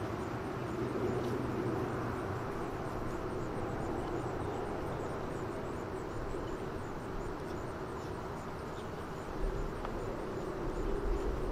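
Steady background engine drone, with a low rumble coming in near the end.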